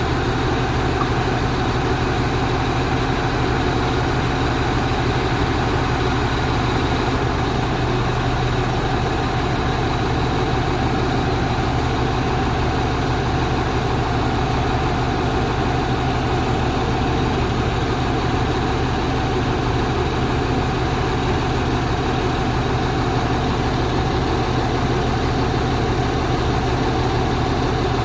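Four-axle truck's engine running steadily at one even speed, a low hum with no change in pitch or loudness.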